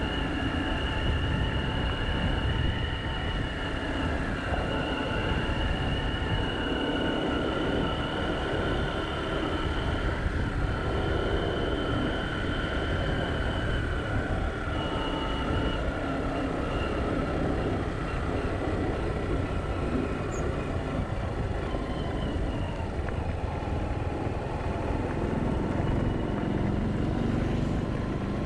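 A vehicle running steadily, a continuous low rumble with a high whine that wavers slowly in pitch.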